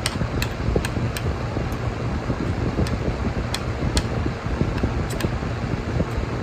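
Metal spoon and fork clinking and scraping on a ceramic plate while eating, with light, irregular clicks, over a steady background hum.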